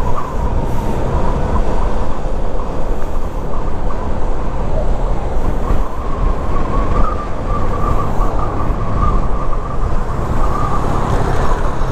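Steady rush of wind and road noise with a Honda ADV150 single-cylinder scooter engine underneath, cruising on the move. A faint wavering whine comes in over the second half.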